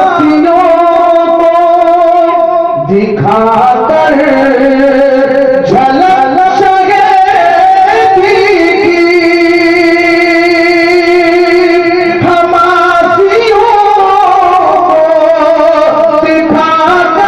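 A naat reciter singing long, drawn-out notes that waver and slide between pitches. The longest note is held for about four seconds near the middle.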